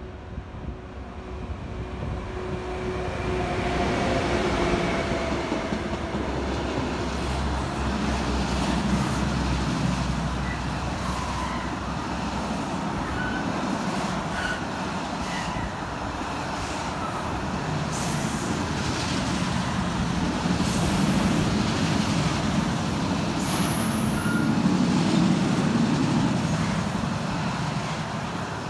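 Electric train passing on the line. Its rumble builds over the first four seconds, then runs steadily with occasional wheel-on-rail clicks.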